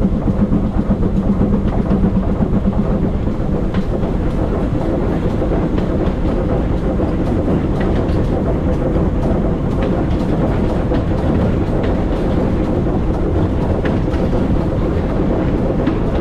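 Steam train hauled by GWR small Prairie tank locomotive No. 5542 running along the track: a continuous rumble of wheels on rails with a steady hum and a few light clicks, uneven and pulsing in the first couple of seconds, then steadier.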